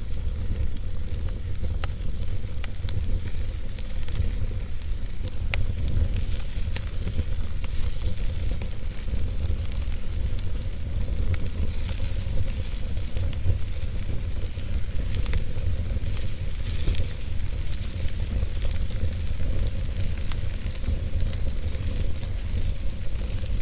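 Wood fire burning in a fireplace: scattered crackles and pops over a steady hiss and a low rumble.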